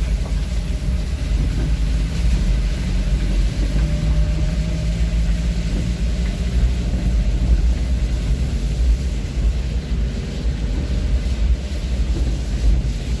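Steady low rumble of a vehicle on the move: engine and road noise, with a faint engine tone wavering slightly through it.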